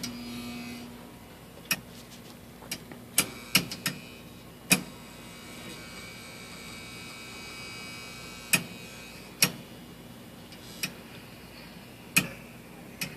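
Furnace running with a steady hum, broken by about a dozen sharp, irregularly spaced ticks and pops.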